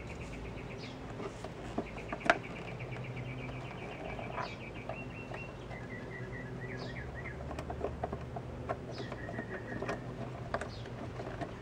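Small songbirds trilling and chirping: fast runs of evenly spaced high notes lasting a few seconds each, with short high chirps between. Scattered faint clicks and a low steady hum run underneath.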